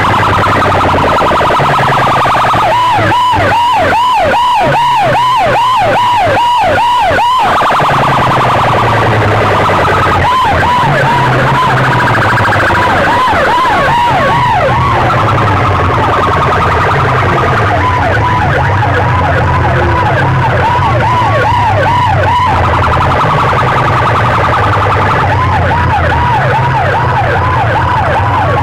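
Electronic siren effect blasted at full volume through a large stack of horn loudspeakers: runs of quick rising-and-falling whoops, about three a second, that come and go in spells over a low droning tone that steps up and down in pitch.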